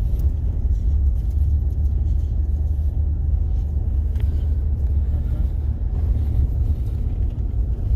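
Steady low rumble of a vehicle driving on a gravel road, engine and tyre noise heard from inside the cab.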